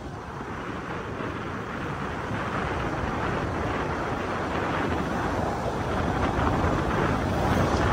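Steady rush of wind and tyre noise from a vehicle travelling on a wet road, growing slowly louder.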